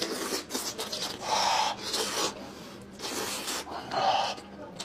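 A person eating close to the microphone: chewing and mouth noises in several short bursts, each about half a second to a second long.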